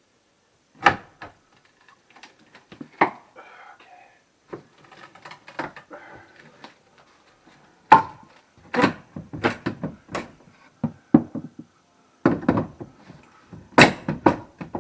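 Irregular wooden knocks and thuds, single hits and short clusters of quick strikes with quiet gaps between, as boards and panels are handled or knocked loose.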